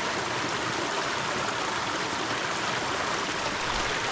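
Small mountain creek running steadily over rocks into a pool, a constant rushing of water.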